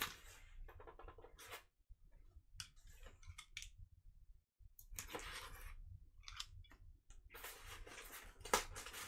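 A cardboard record mailer being handled and opened by hand: faint, intermittent scraping and rustling of cardboard and packing, with a few sharp clicks, busier and louder in the last couple of seconds.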